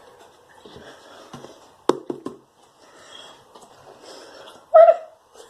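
Small handling sounds: a sharp knock about two seconds in, followed quickly by two lighter taps, then a brief louder sound just before the end.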